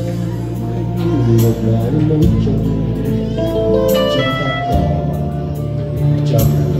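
Yamaha electronic keyboard playing a ballad accompaniment with a programmed drum beat, bass line and chords, and a quick rising run of high notes about four seconds in.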